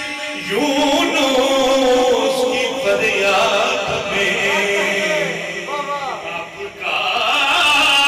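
A man chanting a naat, an Urdu devotional song, in long held phrases with sliding pitch.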